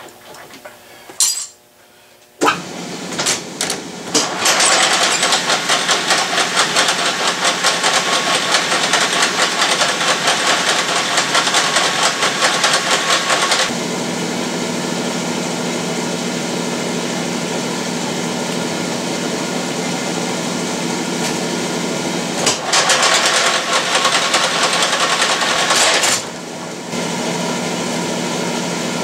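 Metal lathe starting about two seconds in and running while a steel shifter fulcrum pin is turned down to size. A rough, fast-fluttering cutting sound lasts until about halfway, then a steadier hum with a low tone, and a second louder stretch comes a few seconds before the end.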